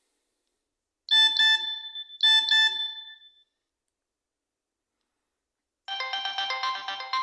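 Nokia 6020 mobile phone playing its built-in ringtones through its small loudspeaker. A short, bright two-note ring sounds twice, about a second apart. After a pause of about three seconds, a different, busier melody with several notes at once starts near the end.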